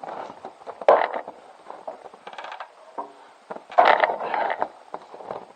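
Small metal objects clicking and rattling as they are handled, likely screws, with irregular knocks that are louder about a second in and again around four seconds. A short run of rapid clicks comes midway, and a brief squeak follows just after.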